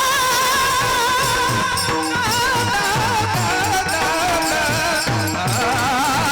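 Devotional kirtan singing: a high voice holding long, wavering notes over a steady drum beat.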